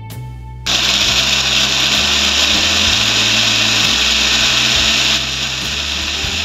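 Countertop blender switched on about half a second in, its motor running steadily as it purées chopped orange into juice. It runs a little quieter from about five seconds in.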